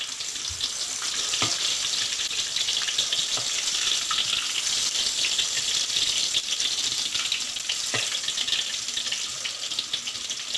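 Sliced tempe frying in hot oil, a steady crackling sizzle, with two light knocks about a second and a half in and again near the end.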